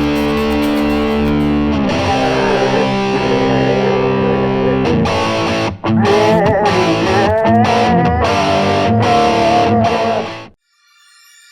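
Rock music on distorted electric guitar: held chords for about six seconds, then after a brief break a lead line with bending notes, cutting off suddenly about ten and a half seconds in.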